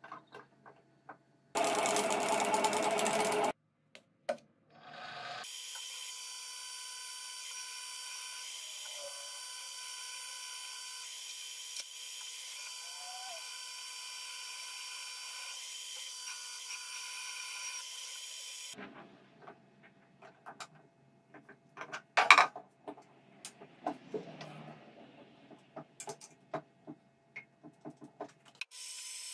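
Benchtop milling machine's spindle running steadily with a fixed whine while a twist drill bores into a metal disc held in the vise, for about thirteen seconds. Before it a loud burst of noise about two seconds long, and after the spindle stops a series of clicks and knocks, the loudest a sharp knock about twenty-two seconds in.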